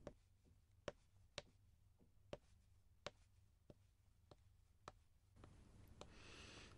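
Near silence: room tone with about seven faint, sharp clicks at uneven intervals, then a soft hiss over the last second or so.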